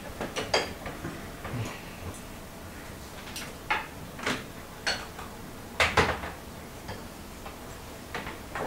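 Cutlery clinking and tapping on dessert plates as cake is served and eaten: about ten scattered clicks, the loudest about six seconds in.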